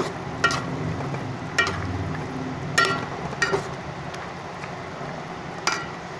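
A cooking utensil stirring bottle gourd and eggplant in a metal pot, clinking sharply against the pot about five times with a brief metallic ring, over a steady low background noise.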